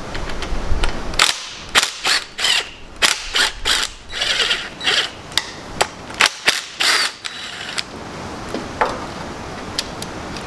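Metal tools and engine parts clicking and clanking at irregular intervals, with some quick runs of clicks, as a Toyota 4A-GE engine is taken apart by hand.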